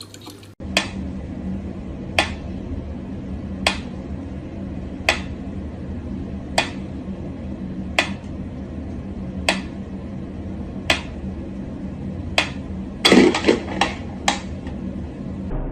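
Mechanical pyramid metronome ticking slowly, one sharp tick about every second and a half. Near the end comes a quick flurry of louder knocks and clatter as a cat paws at the metronome.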